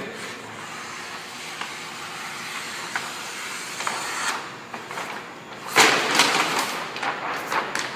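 Scissors cutting straight down through a vinyl decal's paper backing liner, a steady hiss, then louder crackling rustle of the backing paper being handled from about six seconds in.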